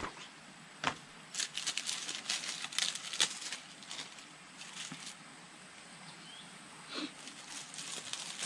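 Leaves rustling and crackling as a leaf-wrapped packet of vegetables, roasted in embers, is pulled open: a dense run of short crackles and clicks between about one and three and a half seconds in, and a few more near the end.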